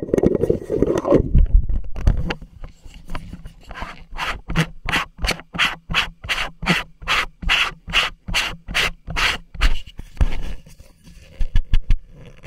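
Close handling noise: a hand rubbing and scraping on the camera's waterproof housing right at the microphone. A heavy rumble of handling comes first, then a run of even scraping strokes, about three or four a second, then a few scattered scrapes near the end.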